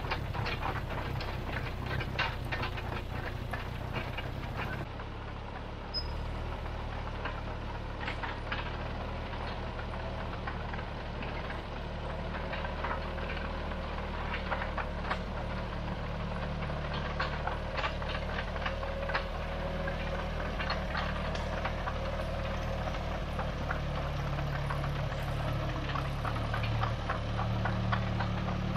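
Bristol 25 crawler dozer's diesel engine running steadily, with frequent clanks and rattles from its steel tracks and running gear.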